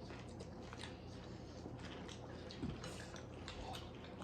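People chewing food close to the microphone: soft wet squishing and small scattered clicks of eating.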